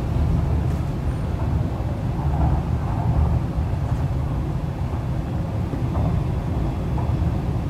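MTR East Rail Line R-Train running at speed, heard from inside the passenger car: a steady low rumble of wheels on track and running gear.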